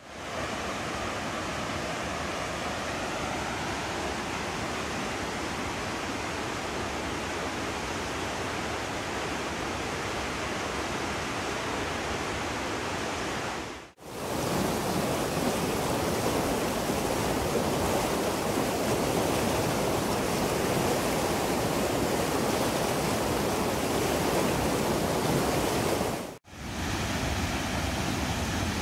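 Steady rush of a waterfall and whitewater on the Muddy River, in three takes, each broken off by a short dip to silence, about halfway through and again near the end. The middle take is a little louder.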